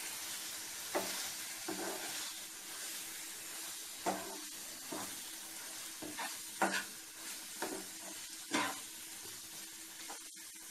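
Chicken and vegetables sizzling in a non-stick frying pan while a slotted spatula stirs them, with about eight short scrapes of the spatula on the pan at irregular intervals over the steady sizzle.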